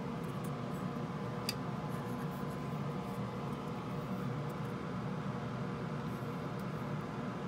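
Steady background hum and hiss, with one faint click about a second and a half in.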